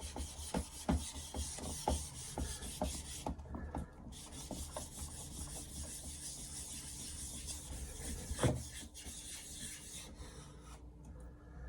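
Atoma 400 diamond plate rubbed back and forth across a Naniwa Chosera 3000 whetstone to flatten it: a steady gritty rasp with knocks at the changes of direction, quickest in the first few seconds, and one louder knock about eight seconds in.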